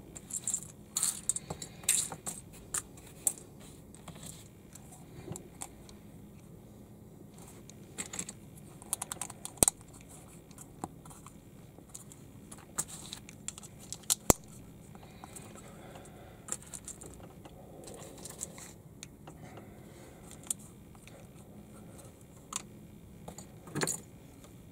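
Small plastic Lego-compatible building bricks clicking and rattling in the hands as pieces are picked from a loose pile and pressed onto a baseplate. The clicks come in scattered clusters, busiest near the start, about eight to ten seconds in, around fourteen seconds, and once more near the end.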